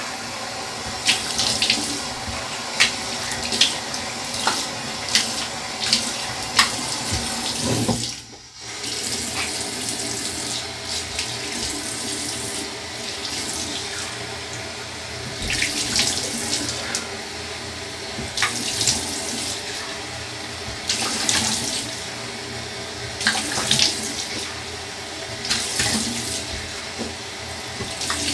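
Tap water running into a bathroom sink, with repeated splashes throughout. The flow cuts out briefly about eight seconds in, then runs on.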